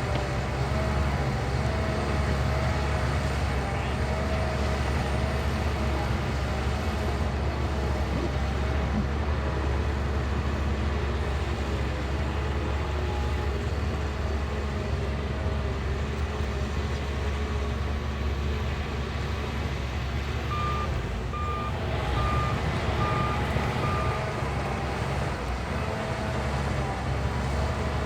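Shantui bulldozer's diesel engine running steadily at working load. About three-quarters of the way in, a reversing alarm beeps five times.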